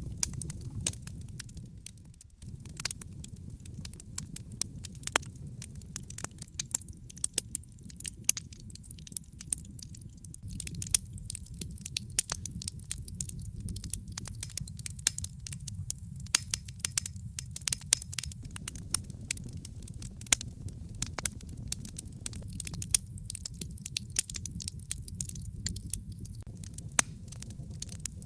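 Wood fire burning in a fireplace: logs crackling with many sharp, irregular pops over a low, steady rumble of the flames.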